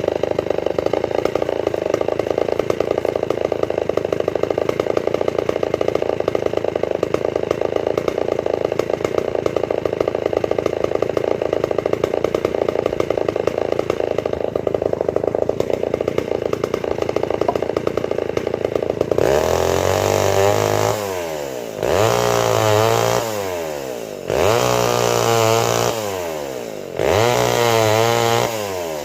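Homelite two-stroke chainsaw engine running steadily, then revved up and let back down four times in quick succession.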